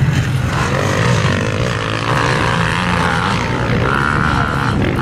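Motocross dirt bike engines running on the track, the note revving up and down as riders work the throttle.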